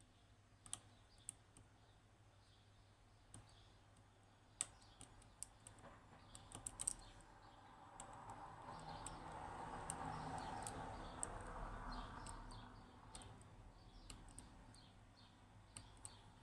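Faint, scattered small clicks from a lock pick and tension wrench working the pins of a Yanai lock, mostly in the first half. A soft rushing noise swells and fades in the middle, and faint high chirps repeat in the background.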